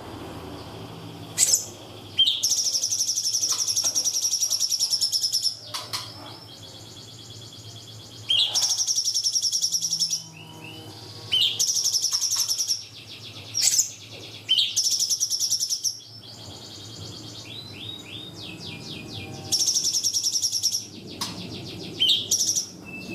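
Cungkok bird song used as a masteran recording: repeated bursts of rapid, high-pitched trilling, each one to three seconds long, separated by short sharp notes and pauses. A faint low hum runs underneath.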